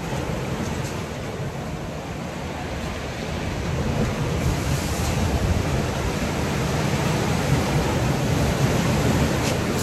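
Surf breaking and washing over a rocky shore, mixed with wind rumbling on the phone's microphone; a steady roar that grows louder about four seconds in.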